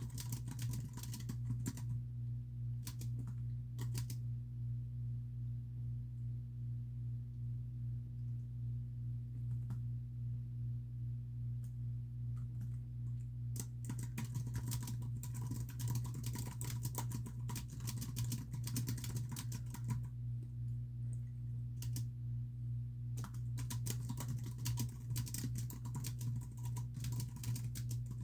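Typing on a computer keyboard in bursts: a quick flurry at the start, a long stretch with only a few isolated keystrokes, then steady typing through most of the second half with one short pause. A steady low hum runs underneath.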